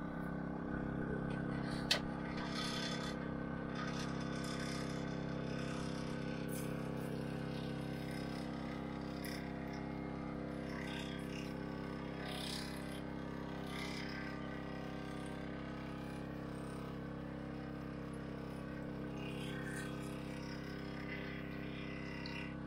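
Beer-battered yellowtail fillets frying in a pot of hot oil, sizzling and crackling on and off, over a steady hum from a portable generator. A sharp click about two seconds in.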